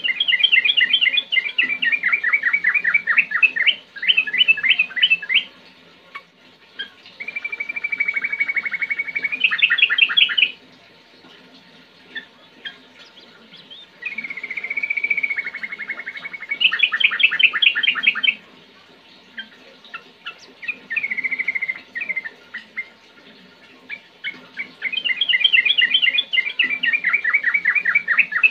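Yellow-vented bulbul singing in about five bouts of rapid, closely repeated whistled notes, with short pauses between them. Several phrases open with a held whistle before breaking into the quick rolling trill.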